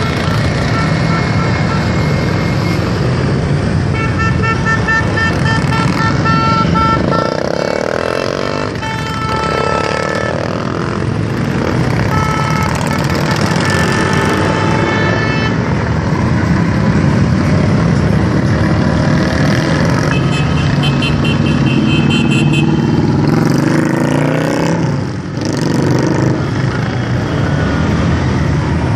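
Motorcycle engines running loudly and continuously, with horns honking several times through the middle stretch.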